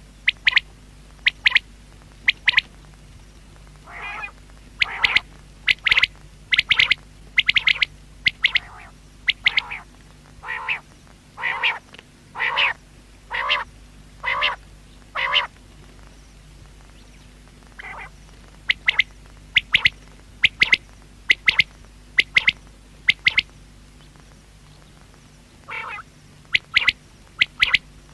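Common quail calling: short, sharp notes given in quick groups of three, over and over, with a stretch of longer, lower notes in the middle.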